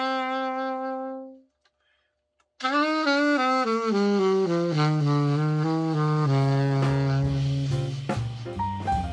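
Selmer Super Action 80 alto saxophone play-tested after a full overhaul: a held note fades out, a short pause follows, then a run of notes steps down to a long low note. Near the end, backing music with drums and bass comes in.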